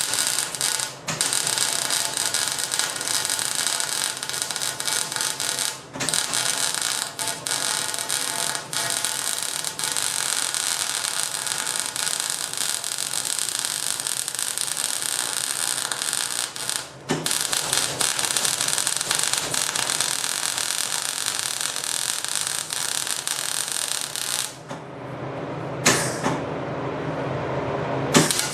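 Electric welding arc crackling and hissing steadily as steel pipe legs are welded onto a larger steel pipe, with brief stops between beads about a second in, at six seconds and at seventeen seconds. The arc stops about twenty-four seconds in, followed by a few sharp clicks.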